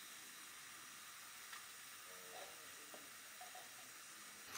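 Faint, steady sizzling hiss of food cooking.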